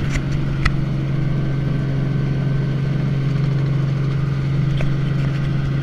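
Tour helicopter's engine and rotor giving a steady, loud low drone, with a short click under a second in.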